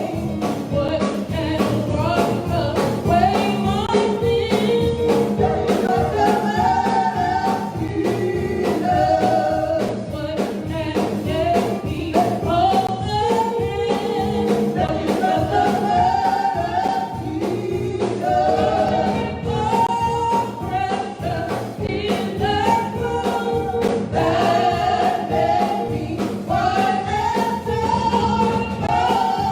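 Gospel song with singing voices over instrumental accompaniment, with a steady beat and held keyboard-like chords.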